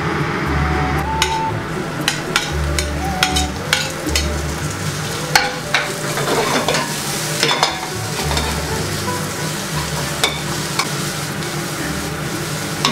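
Minced garlic and sliced onion frying in a pan with a steady sizzle, while a spatula stirs them and scrapes and knocks against the pan many times.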